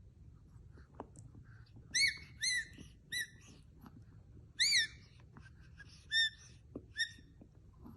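Short, high-pitched squeaks from a Chihuahua puppy's play, about seven of them at irregular moments, some in quick pairs.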